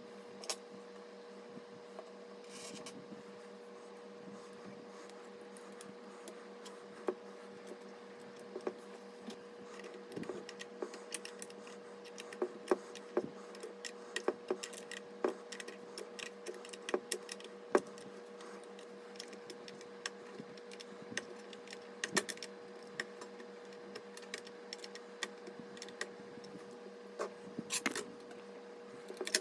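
Irregular sharp clicks and taps of computer parts being handled and fitted during a PC build, more frequent from about ten seconds in, over a steady low hum.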